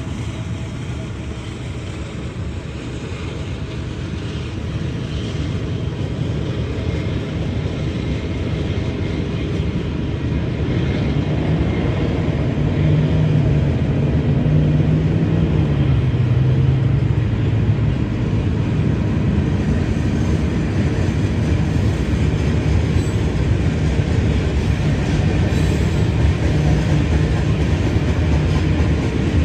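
Union Pacific freight train rolling past, a continuous rumble of wheels and cars on the rails. It grows louder through the first half and then holds steady, with a low wavering hum for several seconds midway.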